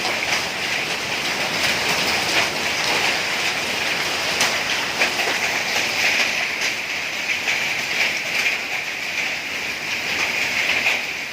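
Summer storm rain and hail pelting down: a steady dense hiss of rain with many small ticks of hailstones striking.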